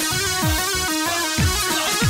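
Instrumental break of an Iraqi choubi dance song: an electronic keyboard melody over a steady drum beat, with deep bass thumps that drop in pitch about twice a second.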